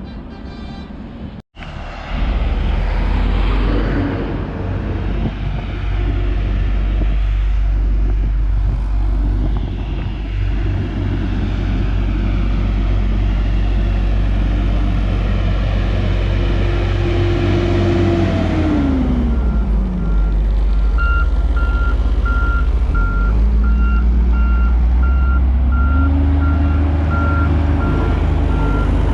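Heavy diesel road-construction machinery running with a deep, steady engine rumble. About two-thirds through, an engine's pitch drops as it throttles back, and then a vehicle's reversing alarm starts beeping steadily.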